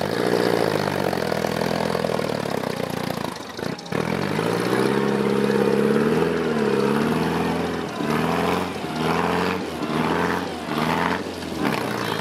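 Vintage trials car's engine labouring and revving as the car climbs a muddy slope. The revs drop sharply for a moment about three and a half seconds in, then pick up again. In the second half the engine rises and falls in quick surges.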